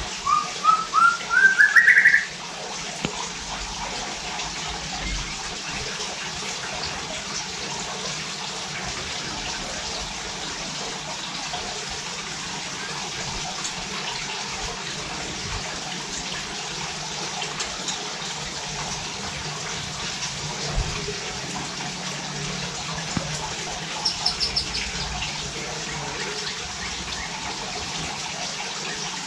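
White-rumped shama (murai batu) singing: a quick run of short whistled notes climbing in pitch for about two seconds at the start, then a brief high trill later on. Under it runs a steady rushing hiss like running water.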